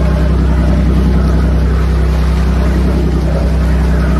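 A motorboat's engine running steadily, a low drone, with water rushing along the hull and wind on the microphone.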